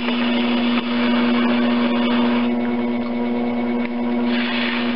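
Electric potter's wheel motor humming steadily as the wheel spins, with a scraping hiss that comes and goes as a sharp rib trims clay from the base of a thrown jug.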